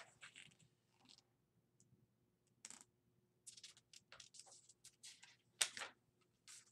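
Faint scattered handling noises, short clicks and rustles at irregular intervals, the loudest about five and a half seconds in.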